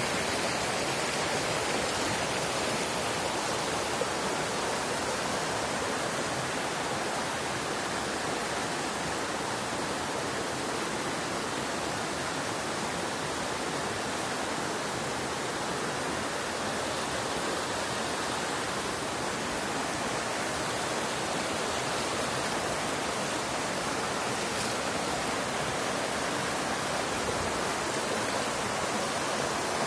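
Shallow rocky stream rushing steadily over and between boulders, a constant white-water rush.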